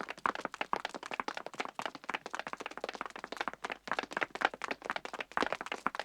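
Footsteps sound effect: many quick, sharp steps that come close together and overlap irregularly, as of several people walking or someone hurrying.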